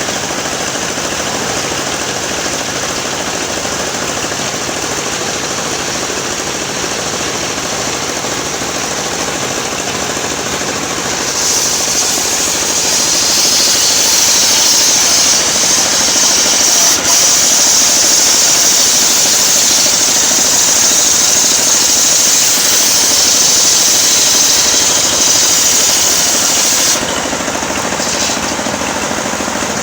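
Engine-powered portable sawmill running steadily, its blade ripping lengthwise through a coconut-wood log. About a third of the way in, a loud high-pitched cutting whine comes in over the engine and holds for about fifteen seconds, then stops abruptly as the blade leaves the cut, leaving the engine running.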